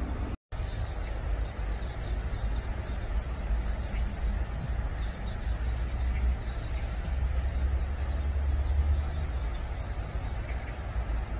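Steady low rumble and hiss of outdoor background noise, with faint high chirps scattered through it. The sound cuts out completely for a moment about half a second in.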